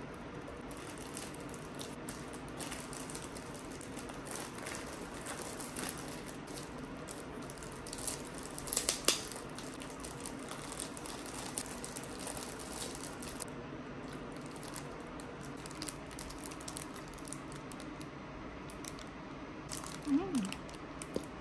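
Laptop keys tapped in soft clicks, then a thin clear plastic bag crinkling as it is handled and opened around a bread roll. The crinkling is loudest about nine seconds in, over a faint steady hum.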